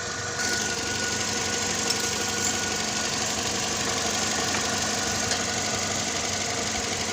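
2012 Scion xD's 1.8-litre four-cylinder engine idling steadily, warmed up so the automatic transmission fluid can be checked hot after a drain-and-fill. It gets slightly louder about half a second in.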